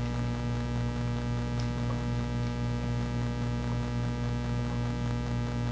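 Steady electrical mains hum with its overtones, unchanging throughout.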